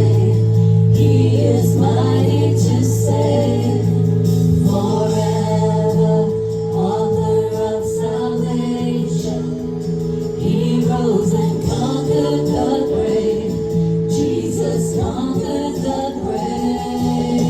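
A gospel song: singing over sustained instrumental accompaniment.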